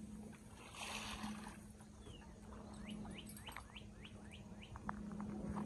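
A bird calling, with a quick run of short rising whistled notes in the middle, faint over a low steady hum. There is a brief rush of noise about a second in.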